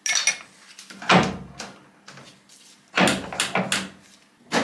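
A series of heavy clunks and knocks from handling a stopped manual metal lathe, a Colchester 1800: a sharp knock at the start, a deep thud about a second in, a group of knocks around three seconds in, and a sharp knock just before the end.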